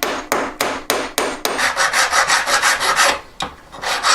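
Rasping strokes of a jeweller's hand tool working a metal ring: sharp strokes about three a second at first, then a faster run of strokes about a second and a half in, with a short pause near the end.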